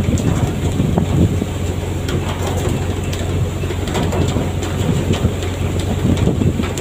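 Steady low engine drone of a fishing boat, with scattered clicks and knocks over it.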